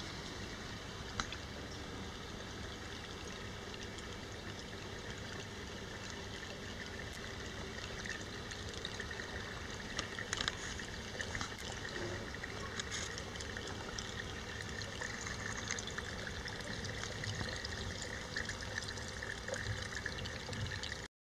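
Steady trickle of water from a Dutch bucket hydroponic system, nutrient solution draining from the buckets back toward the reservoir, with a few light clicks.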